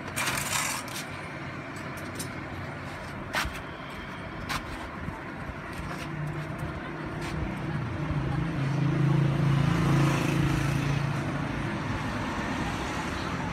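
Street and workshop background noise with a few sharp knocks, then a motor vehicle's engine hum that builds from about six seconds in, is loudest around nine to ten seconds, and eases off.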